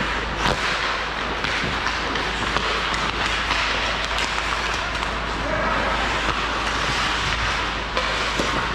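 Hockey game in play: a steady rink hiss of skates, with a few sharp knocks of sticks and puck.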